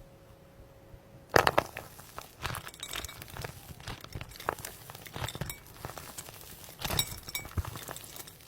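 Crunchy slime being squeezed and pressed in the hands: a dense run of small crackles and clicks. It starts with a loud burst about a second in, and another loud burst comes later on.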